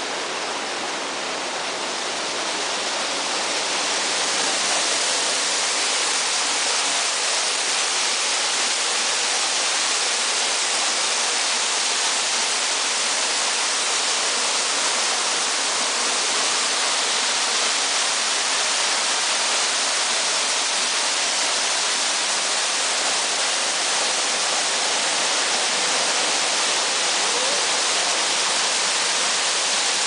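Small waterfall on a rocky mountain stream, with water pouring over boulders and splashing into a pool in a steady, hissing rush. It grows a little louder about four seconds in.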